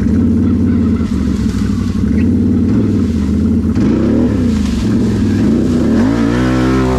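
Can-Am 1000 ATV's V-twin engine running under throttle. Its pitch dips and climbs again about four seconds in, then revs up near the end.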